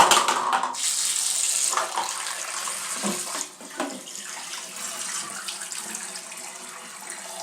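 Water running from a turned-on tap, a strong gush over the first couple of seconds that settles into a steadier, quieter flow.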